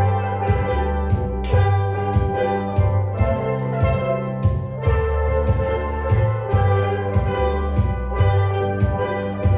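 Steel pan band playing a tune: many steel drums struck in a steady rhythm, ringing melody notes over a low bass line.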